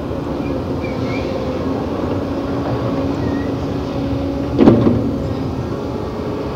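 Heavy diesel earthmoving machinery running steadily, with one loud impact and brief ringing about two-thirds of the way through.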